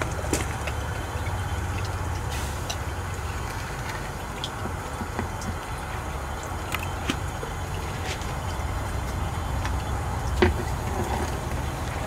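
Steady low rumble and light hiss of water flowing through the GOLDROP gold separator's column, fed by a 12-volt bilge pump, with scattered faint clicks and a sharper tick about ten seconds in.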